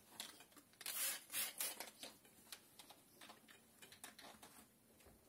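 Squeegee with a Blue Max blade on a Fusion 8 extended handle drawn down wet window film on glass in overlapping strokes: a series of short swishes, loudest from about one to two seconds in, then fainter light ticks.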